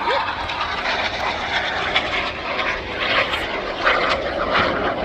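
Jet aircraft flying past overhead: a loud, continuous rushing jet noise that swells and dips, with low rumble from wind on the microphone.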